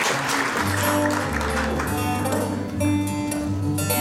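Acoustic guitar being fingerpicked: single notes and bass notes ringing out. Applause dies away at the very start.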